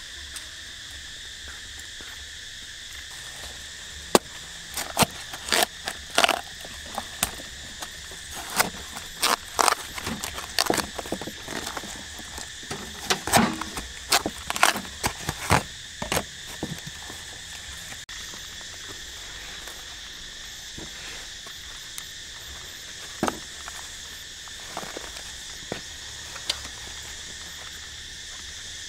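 Insects keep up a steady high-pitched drone throughout. From about four seconds in until about seventeen seconds, a run of sharp cracks and crunches, a knife cutting through watermelon rind and flesh, is the loudest sound.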